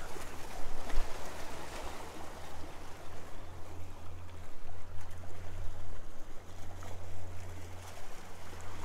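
Sea water washing and splashing against the rocks of a jetty, over a steady low rumble.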